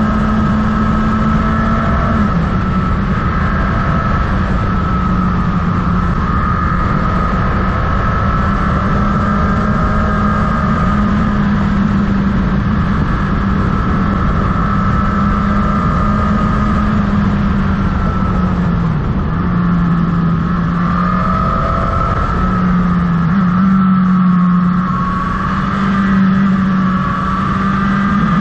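Motorcycle engine running at road speed under a constant rush of wind and road noise. The engine note holds steady, dips about two-thirds of the way through, then rises again a few seconds later as the throttle changes.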